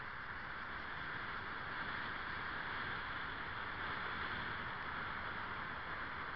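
Steady running noise of a car driving slowly, heard from inside through a dashcam's microphone.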